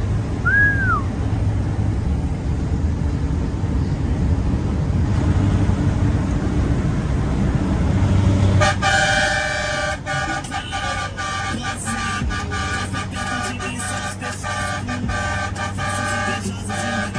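Steady engine and road rumble inside a truck cab at highway speed, with one short rising-and-falling whistle about half a second in. From about halfway through, a multi-tone truck air horn sounds a steady chord in a string of blasts, broken off and restarted several times.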